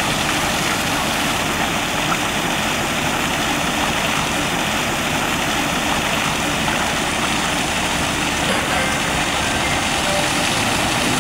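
Fountain jets arcing and splashing into a stone basin close by: a steady rush of falling water.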